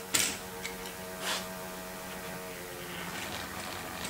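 A few sharp clicks and knocks, the loudest just at the start, over a steady electric hum, from a Hornby OO gauge model train set with two derailed wagons off the track.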